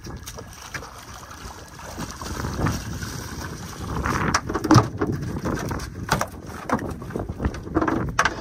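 Water splashing as a catfish is hauled up out of the river on a jug line, with wind on the microphone. From about four seconds in come a run of sharp knocks and splashes.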